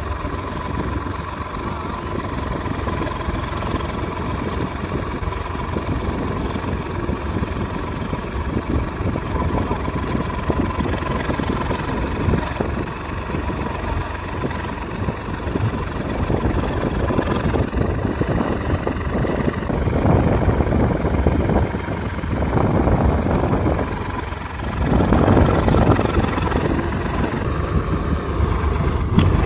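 Diesel tractor engines running under heavy load as one tractor tows another out of deep mud. The engines swell louder in surges about two-thirds of the way in and again near the end.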